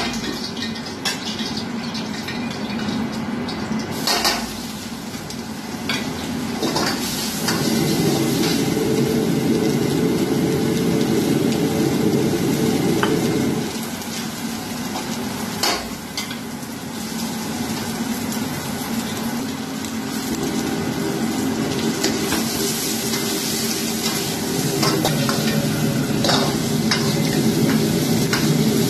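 Stir-frying in a wok over a gas wok burner: chicken and vegetables sizzling while a metal ladle stirs and scrapes, with several sharp clacks of the ladle against the wok. A louder low steady rush comes in about seven seconds in, stops near the middle and returns in the last third.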